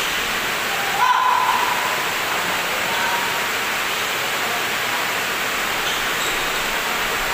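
Steady rushing background noise of an indoor badminton hall during a rally, with a short squeak about a second in.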